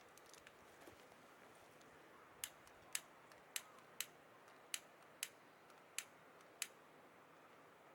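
Eight sharp clicks at a fairly even pace, a little under two a second, over a faint steady hiss.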